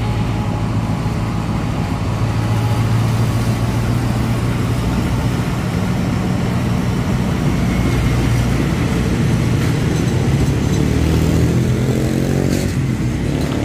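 Alsthom diesel-electric locomotive's engine running steadily under load as it pulls a short train away, with the carriages rolling past on the rails. Near the end the engine tone glides in pitch and there is a brief high clink.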